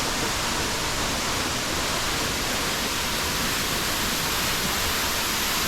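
Steady, continuous rush of a waterfall pouring into a pool.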